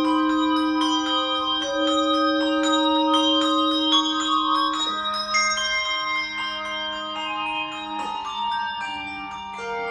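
Handbells and handchimes playing a flowing melody: quick struck notes ring over long-held lower notes, and the lower notes move down about five seconds in.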